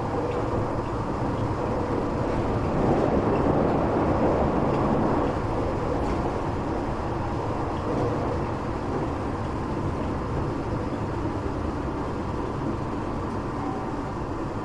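Tokyo Metro 8000 series train running, heard from inside the car: a steady rumble of wheels on rail with a faint steady hum, growing louder for a couple of seconds about three seconds in.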